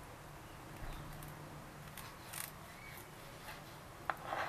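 Knife cutting salt-cured sardine fillets into thin strips on a plastic cutting board: a few faint, short scrapes of the blade, with a sharper click about four seconds in.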